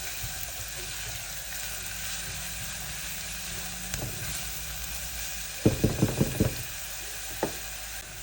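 Onions sizzling as they sauté in hot coconut oil in a pot: a steady frying hiss. A little past halfway comes a quick run of about five knocks, with a single knock shortly after.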